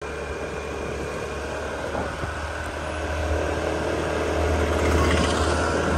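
Steady low rumble of a moving vehicle's engine and road noise, growing gradually louder.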